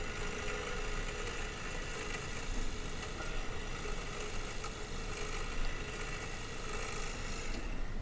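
Makita DUN461WZ 18-volt cordless long-reach hedge trimmer running, a steady motor-and-blade whine that stops shortly before the end.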